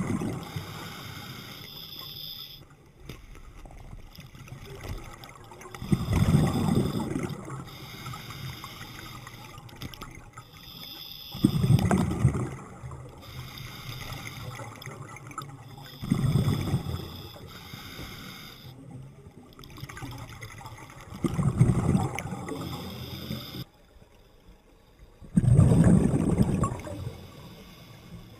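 Scuba diver breathing through a regulator underwater: a loud gush of exhaled bubbles about every five seconds, six in all, with a quieter hiss between them.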